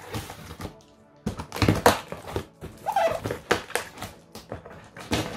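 Packing tape on a cardboard box being cut with a knife and the flaps pulled open: irregular scraping, tearing and rustling of cardboard and tape, with a brief squeak about three seconds in.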